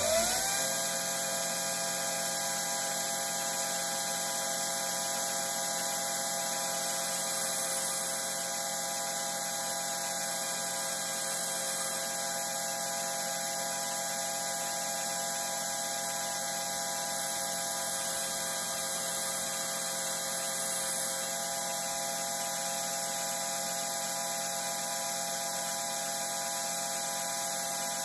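Bench grinder motor and wheel finishing their spin-up in the first half-second, then running steadily at full speed with no load: an even whine of several fixed tones over a hiss. The wheel is not yet touching the drill bit.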